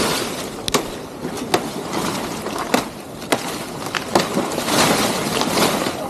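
Footsteps crunching and rustling through forest undergrowth, with sharp snaps or knocks about once a second over a steady hiss.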